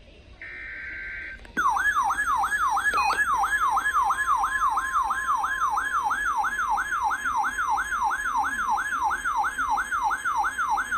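Emergency Alert System data-header burst, a brief buzzy two-tone digital screech, then from about a second and a half in a loud electronic alert tone warbling up and down about three times a second, with a faint steady tone beneath it. This is the alert signal that announces the next weather warning.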